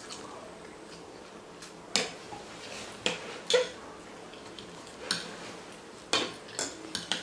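Forks clinking and scraping against plastic plates while noodles are eaten: a scattered run of sharp clicks, about eight over the few seconds, over a faint steady room background.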